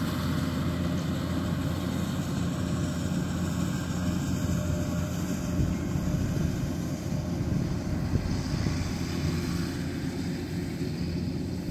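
Rice combine harvester's engine running steadily under load while it cuts: an even, unbroken low drone.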